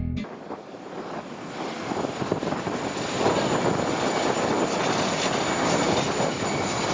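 Jet aircraft noise on an airport apron: a steady rushing roar with a thin high whine, building over the first couple of seconds and then holding steady.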